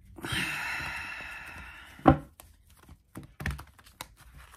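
A tarot deck being riffle-shuffled, a rustling whirr of cards that fades over about two seconds. It ends in one sharp knock as the deck is squared, followed by a few light clicks and taps of cards handled and laid on the table.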